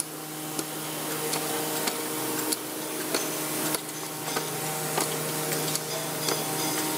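Machinery running on an ammunition-loading factory floor: a steady hum with irregular clicks and ticks.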